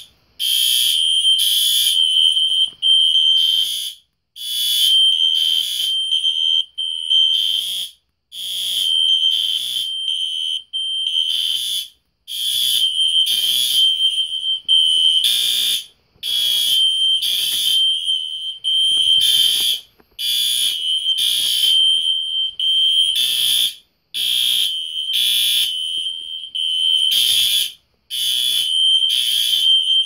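Fire alarm horn sounding in a test: a loud, high-pitched electronic tone in pulses, cutting out briefly about every four seconds.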